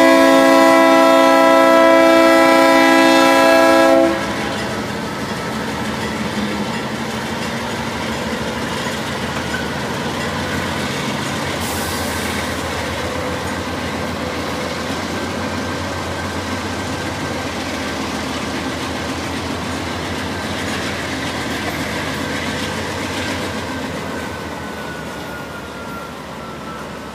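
Multi-chime air horn of a Norfolk Southern GE freight locomotive blowing a steady chord that cuts off about four seconds in. Then the lead diesel-electric locomotives and the train's wheels rumble steadily past on the rails, easing off near the end.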